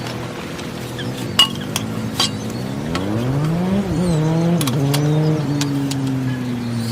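A motor vehicle engine running, its pitch rising as it accelerates, stepping down twice like gear changes about four seconds in, then running steadily and slowly falling. A few sharp clinks come in the first half.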